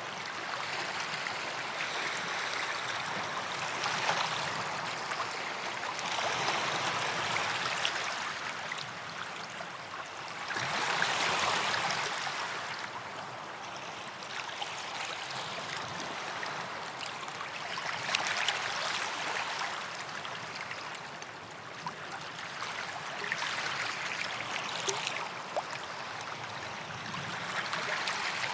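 Small sea waves washing up a sandy beach: a steady rush of water that swells every few seconds as each wave breaks and runs up the sand.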